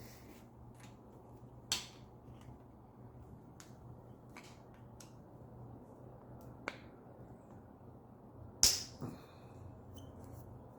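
Scattered light clicks and taps of tools and bicycle parts being handled, with a sharper click about two seconds before the end, over a steady low hum.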